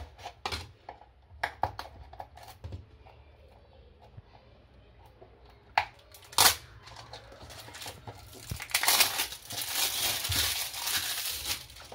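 Packaging being handled by hand: a paper seal strip peeled off a small cardboard box and the box worked open with light scrapes and clicks, two sharp cracks about six seconds in, then plastic wrapping crinkling busily for the last three seconds or so.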